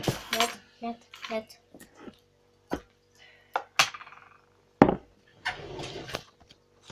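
Sharp knocks and clinks of kitchenware handled on a table, a handful spread over a few seconds, with a short rustling noise near the end and a faint steady hum underneath.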